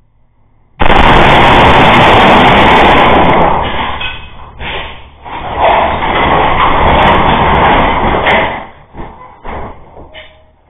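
A truck crashing through a shop's glass front doors, heard through a security camera's microphone: a sudden, very loud crash about a second in that lasts a few seconds, a second loud stretch midway, then a scatter of short knocks and clatters from falling debris.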